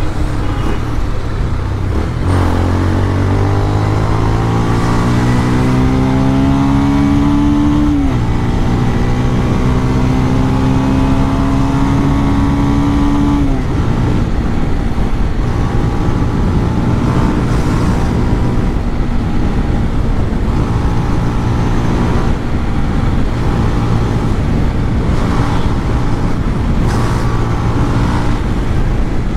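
Motorcycle with a modified exhaust running at highway speed. Its engine note climbs for several seconds, dips sharply about eight seconds in, climbs again, then settles to a steadier cruise. Steady wind and road noise runs under it.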